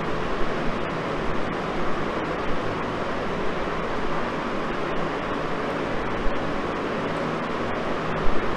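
Steady background noise of the room, an even hiss with a faint low hum, with no speech.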